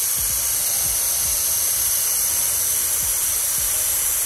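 Garden hose spray nozzle on its mist setting, lying at the base of a plant and spraying water with a steady hiss.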